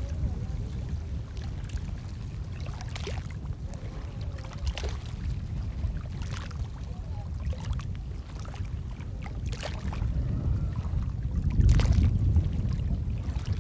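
Paddle and pole strokes splashing and knocking in the water around a small wooden canoe, a short splash every second or two, over a steady low rumble that swells near the end as the boat comes close.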